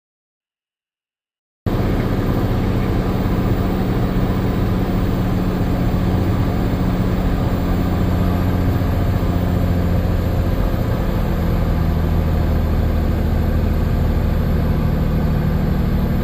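Cabin drone of the Cirrus SR22T's turbocharged six-cylinder piston engine and propeller in steady cruise. It cuts in abruptly after a second or two of silence and holds a constant tone.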